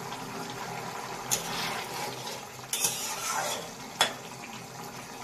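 A metal spoon stirring curry in a steel kadai, knocking sharply against the pan three times, the last knock the loudest, with some scraping between. Under it is a steady hiss of the curry simmering on the gas burner.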